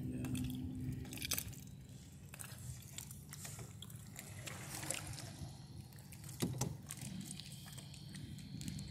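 Water lapping and sloshing against a canoe's hull as it moves, with scattered light knocks and clicks on the boat over a steady low hum.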